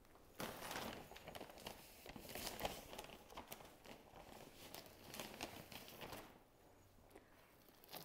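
Potting mix being scooped and poured into a garden box: faint, irregular rustling and crinkling from about half a second in, easing off near six seconds.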